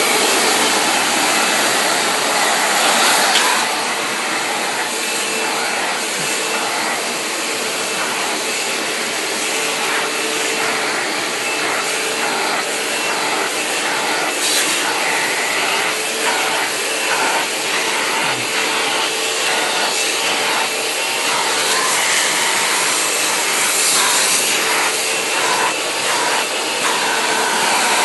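Vacuum cleaner running steadily, with a faint constant whine under its rushing noise. In the second half the sound flutters in short, uneven pulses.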